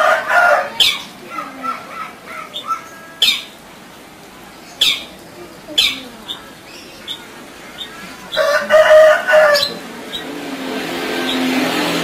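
Caged long-tailed shrike (cendet) in full song: a string of sharp, downward-sweeping whistled calls mixed with harsh, drawn-out squawks. The loudest squawk comes about eight to nine and a half seconds in.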